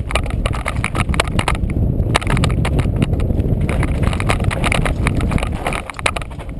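Mountain bike clattering down a rocky dirt singletrack: tyres crunching over loose gravel and stones, with rapid rattles and knocks from the bike as it is jolted over bumps, over a steady low rumble.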